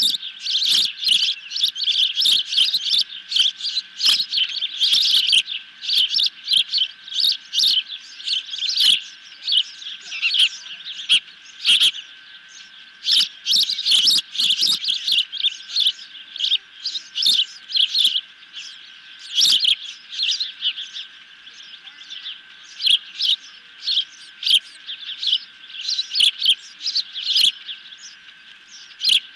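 Juvenile ospreys calling from the nest: long runs of rapid, high, piercing chirps, repeated throughout with short gaps. A faint steady high tone runs underneath.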